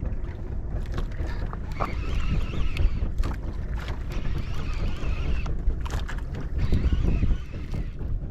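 Wind rumbling on the microphone aboard a small fishing boat at sea, with a few sharp knocks scattered through.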